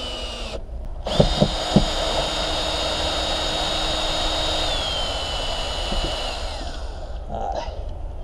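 Cordless drill-driver with a socket extension turning a bolt in a van's ceiling trim molding: a steady motor whine. It stops briefly just after the start, comes back with a few sharp clicks, drops in pitch about two-thirds of the way through and winds down about seven seconds in.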